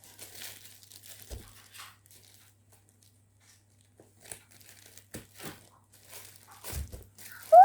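Parcel packaging being torn open and crumpled by hand: irregular crinkling and ripping, with a couple of soft thumps. Right at the end a loud, high cry rising in pitch begins.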